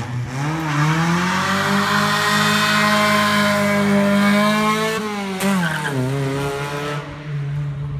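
1990 Honda Prelude's engine revving hard as the car accelerates past, rising at first and then holding a high, steady note. About five seconds in the pitch drops and settles lower as the car goes by.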